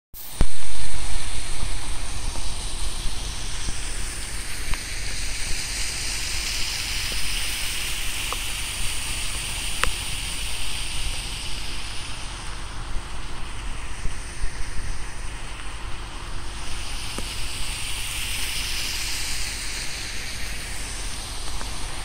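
Steady rushing of a small waterfall pouring down a rock face, over a low wind rumble on the microphone. The rushing thins out for a few seconds midway and then swells again. There is a brief loud burst of noise at the very start.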